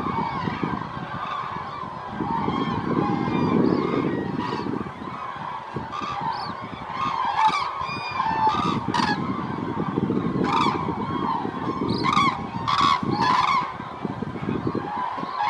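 Waterfowl honking over and over, many short calls overlapping, busiest about halfway through and again near the end, over a constant low rumble.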